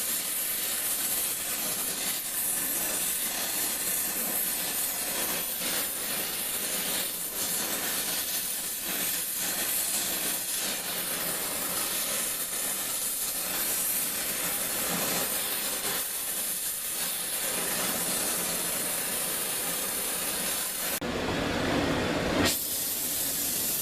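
Oxy-acetylene torch with a rosebud heating tip hissing steadily as it heats the steel strands. Near the end it gives way for about a second and a half to a lower, fuller rush.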